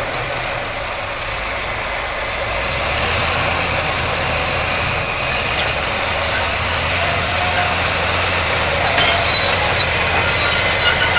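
Heavy diesel earthmoving machinery running hard, a steady rumbling engine with a harsh mechanical noise over it. A thin high squeal joins about nine seconds in.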